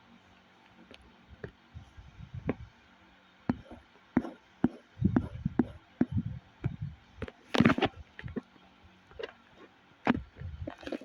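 Handling noise: irregular taps, clicks and soft bumps, with one louder scraping rustle about two-thirds of the way in.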